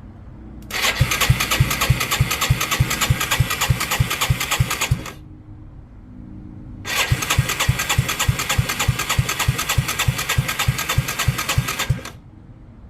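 Yamaha Timberwolf 250 ATV's electric starter cranking the engine in two bursts of about four seconds each, with a whining starter and a steady chug of about five compression strokes a second. The engine does not catch either time: a no-start.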